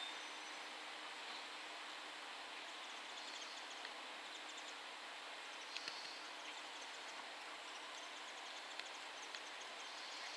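Faint, steady outdoor background hiss as the last of a departing diesel train fades out in the first moment, with scattered faint high-pitched ticks.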